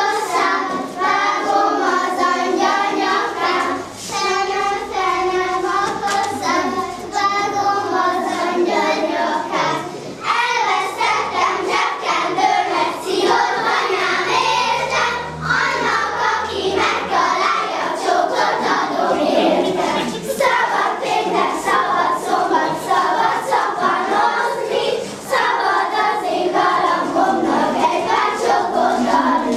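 A group of children singing a song together as they dance. Frequent light taps of their steps on the floor run under the singing.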